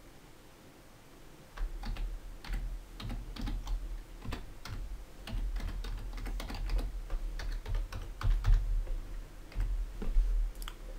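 Typing on a computer keyboard: a run of irregular key clicks that starts about a second and a half in.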